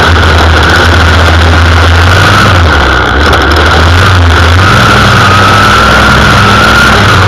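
Gas string trimmer (weed eater) engine running at high speed while its line cuts grass, heard up close from a camera on its shaft: a loud, steady high-pitched whine that wavers slightly.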